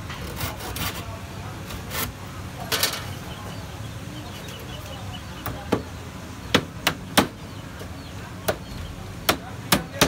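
Small hammer striking the wooden frame of a wire-mesh bird cage, in single sharp knocks at irregular spacing, about seven in the second half. Earlier come a few knocks and a short rasping stroke as a handsaw works along the mesh edge.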